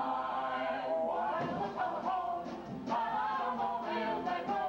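Live banjo band playing an old-time tune: a held, wavering melody line over the band's accompaniment, with short plucked attacks now and then.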